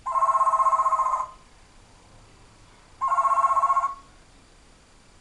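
African grey parrot mimicking a ringing telephone: two trilling rings, each about a second long, about three seconds apart.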